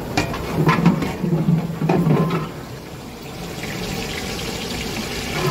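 Long-handled ladle stirring vegetables in a big aluminium pot of boiling water: sloshing water and a few knocks of the ladle on the pot, over a low hum, then a steadier, quieter hiss in the second half.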